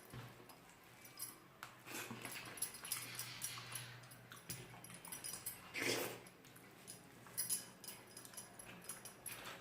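Close chewing and lip-smacking of someone eating rice and curry, a run of small wet mouth clicks with a louder smack or slurp about six seconds in.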